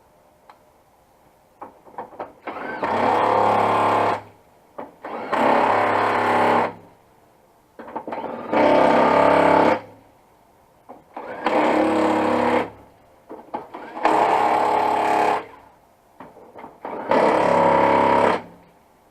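Snap-on cordless electric impact wrench driving bolts home in six separate bursts of about a second and a half each, a steady buzzing hammer with a few small clicks before each burst.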